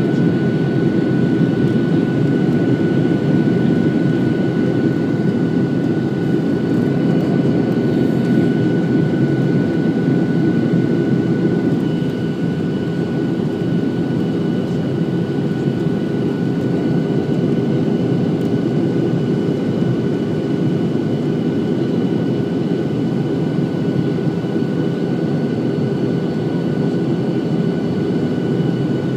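Cabin noise of a Boeing 737-700 in flight: the steady roar of its CFM56-7B turbofan engines and the airflow, with a thin steady high whine over it. About twelve seconds in the whine shifts slightly and the noise eases a little.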